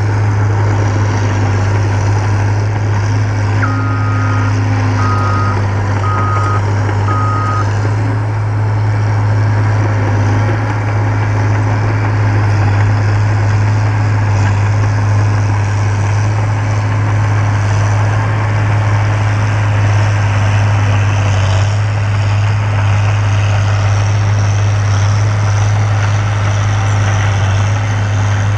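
Caterpillar 963 track loader's diesel engine running steadily, its reverse alarm beeping four times about four seconds in as the loader backs up.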